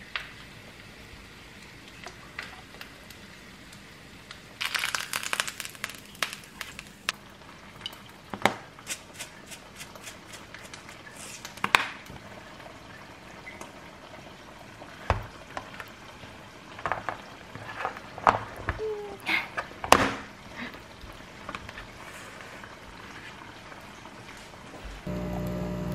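Kitchen handling sounds: a spoon scooping a saucy stir-fry onto rice in a plastic lunchbox, with scattered clicks and knocks of utensils and containers. About five seconds in there are a couple of seconds of dense crackling. Near the end a steady machine hum starts.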